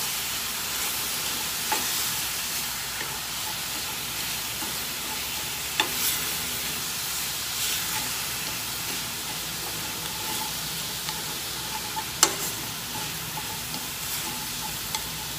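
Minced meat and diced onion sizzling steadily in hot oil in a stainless steel skillet while being stir-fried. Chopsticks click against the pan a few times; the loudest click comes about twelve seconds in.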